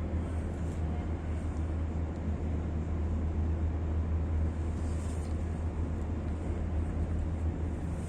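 Ferry's engines running with a steady low drone under a constant rushing noise.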